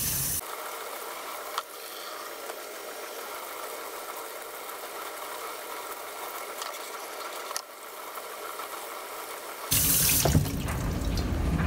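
Tap water running into a utility sink and splashing over a cast-iron motorcycle cylinder being rinsed. The stream is loud at the very start and again from about ten seconds in, softer in between, with a couple of light knocks.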